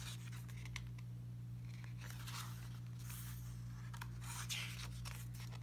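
Paper pages of an album photo book being handled and turned: a few soft swishes and light ticks. A steady low electrical hum runs underneath.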